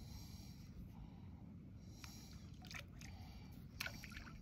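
Faint ambience of a kayak on calm water: a low steady rumble with a few light clicks about two, three and four seconds in.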